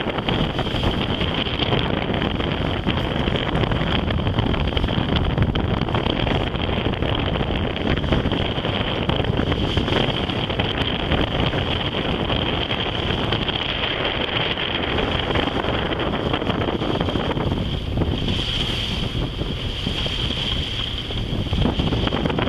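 Wind buffeting the microphone aboard a sailing yacht under way, over the wash of water along the hull and the steady running of the boat's engine.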